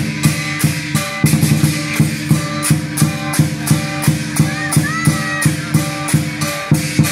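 Lion dance percussion ensemble playing: a big drum beaten with cymbals crashing in a steady rhythm of about three beats a second.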